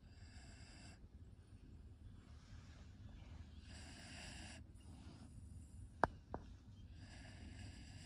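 Sleeping dog snoring softly: a few slow, drawn-out breaths with a faint whistle. Two sharp clicks a little after halfway.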